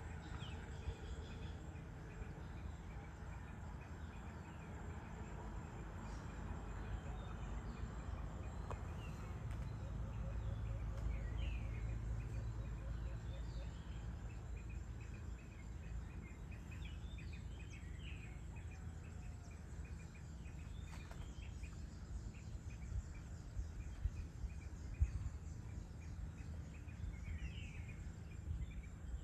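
Evening outdoor ambience: a steady low rumble with scattered short bird chirps and a faint, steady chirring of insects.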